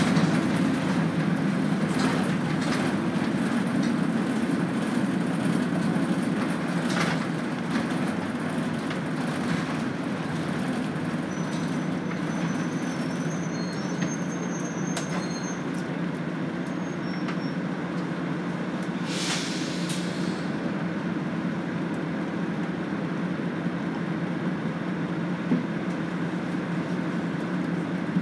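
Running sound heard inside a city bus: a steady engine and road drone, with scattered rattles and clicks. A short hiss comes about twenty seconds in.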